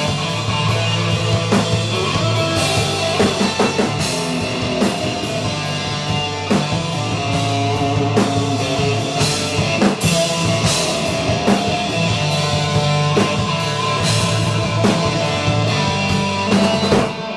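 Live rock band playing: electric guitar, electric bass and drum kit with frequent cymbal crashes. The playing stops suddenly near the end.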